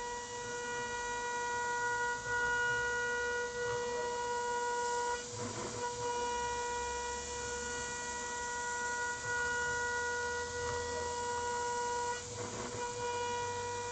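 Spindle of a 6040 CNC router running at about 28,000 rpm, a steady high whine with a hiss underneath, as the end mill helically bores into aluminium plate. The whine dips twice, about five seconds in and again near the end, giving way briefly to a rougher cutting noise.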